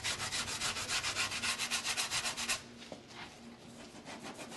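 Cured polyurethane foam being sanded by hand with sandpaper: quick, even back-and-forth strokes that turn fainter about two and a half seconds in.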